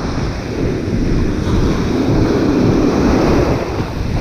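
Ocean surf breaking and washing up a sandy beach, with wind buffeting the microphone; a steady, loud rush with no distinct knocks.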